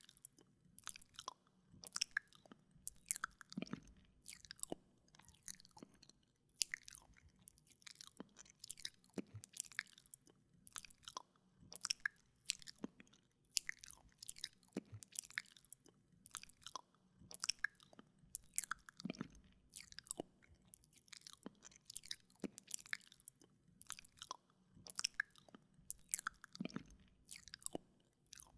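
Wet ASMR mouth sounds close to a binaural microphone: tongue clicks and lip smacks coming in irregular clusters of sharp, wet clicks with short pauses between.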